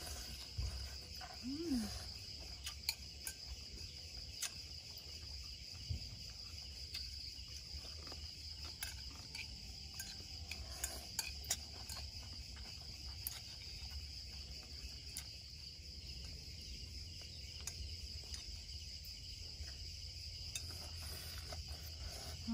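Night insects chirring steadily in one continuous high trill, with occasional small clicks from eating with chopsticks and a brief murmur about two seconds in.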